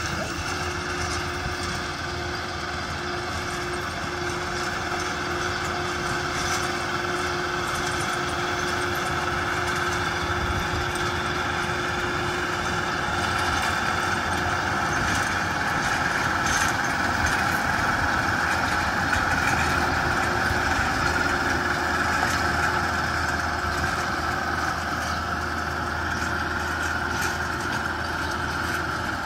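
Yanmar YT490A diesel tractor running steadily while it drives a rear rotary tiller through the soil. It grows a little louder near the middle as the tractor passes closer.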